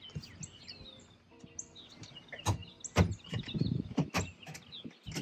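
Birds chirping outdoors. From about two and a half seconds in there are several sharp knocks and clunks as a person shifts about in a boat's seat.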